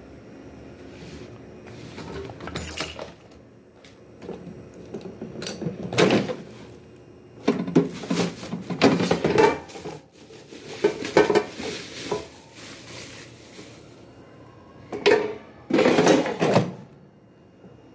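An air fryer's plastic basket being handled and bubble-wrap packing pulled out of it: irregular crinkling, rustling and clattering in bursts, loudest in the second half.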